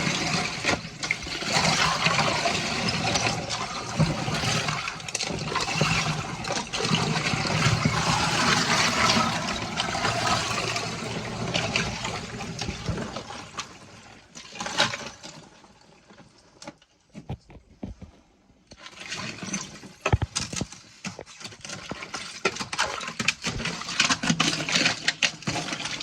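Water running and splashing. It fades out about fifteen seconds in, then comes back with splashes and knocks near the end.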